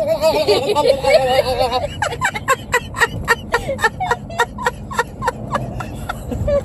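A person imitating a turkey's gobble: a warbling, wavering call for about two seconds, then a run of short, quick yelps, about three a second. Car road noise runs underneath.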